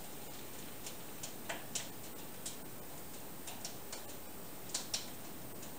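Light, irregularly spaced clicks and taps as a cordless drill is handled and set against a wooden table frame; the drill motor is not running.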